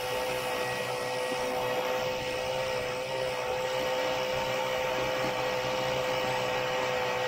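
Vintage Ski-Doo snowmobile's single-cylinder two-stroke engine running steadily under way, with a constant drone and no change in pitch.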